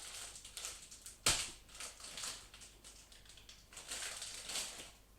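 Hard dark chocolate being broken up: irregular crunching and snapping, with one sharp knock about a second in.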